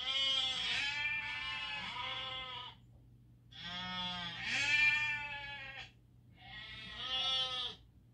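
Goat bleating: three long, wavering bleats with short pauses between them, the first the longest.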